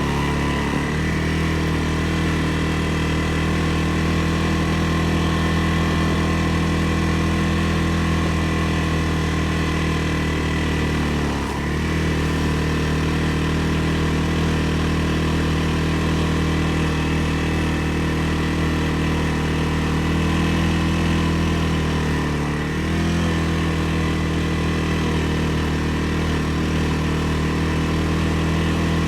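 CFMoto CF600 ATV's single-cylinder engine running steadily while riding a trail. The engine note eases off briefly twice before picking back up.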